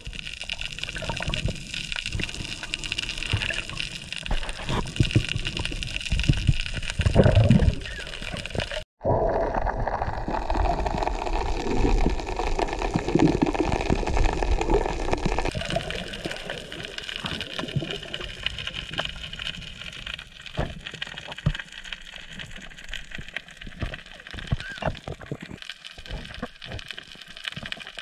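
Water gurgling and rushing around a camera held underwater, with a brief dropout about nine seconds in.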